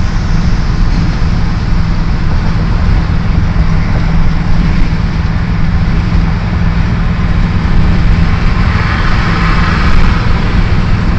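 Steady road noise of a car driving at speed, heard from inside the car: a heavy low rumble with hiss over it, the hiss swelling for a couple of seconds near the end.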